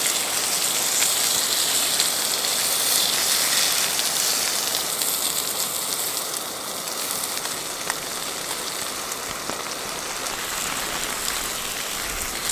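Steak searing in a non-stick pan on high heat: a steady sizzle with fine crackles through it.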